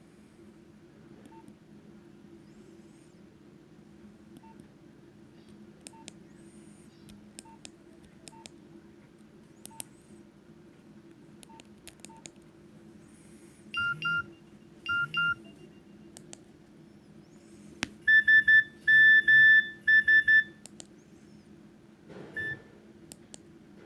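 Nokia 2610 mobile phone's loudspeaker giving electronic beep tones: scattered faint clicks over a low steady hum, then two short beeps about two-thirds of the way in, a louder run of rapid pitched beeps a few seconds later, and one short beep near the end.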